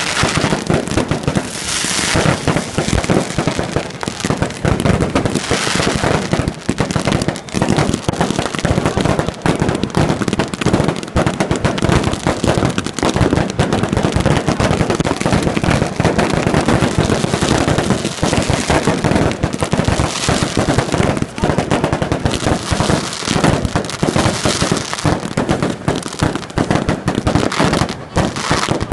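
Fireworks going off in a dense, unbroken barrage of rapid bangs and crackling, swelling into brighter crackle every few seconds.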